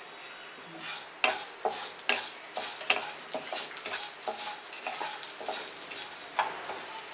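Wooden spatula stirring coriander seeds as they roast in a little hot oil in a non-stick kadai. From about a second in come scraping strokes about twice a second, over a light sizzle.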